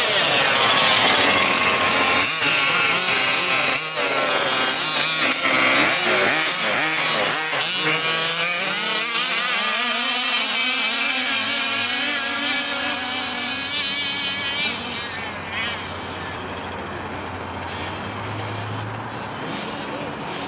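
1/5-scale RC buggy's two-stroke gas engine revving up and down as the car is driven, its pitch rising and falling, then running quieter and steadier from about fifteen seconds in. The engine is still being run in on its third tank of fuel.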